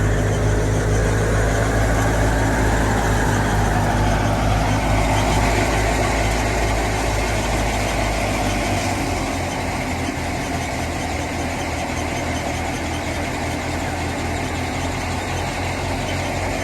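Fiat 480 tractor engine running steadily; its deep low rumble thins out about halfway through.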